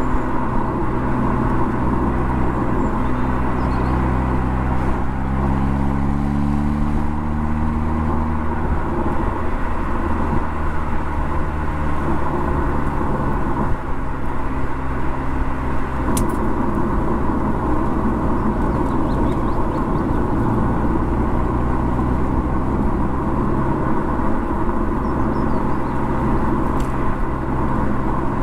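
Mercedes CLA45 AMG's turbocharged four-cylinder engine and exhaust under way, with steady road and tyre noise. The engine note climbs for several seconds as the car accelerates a few seconds in, then drops and holds steadier.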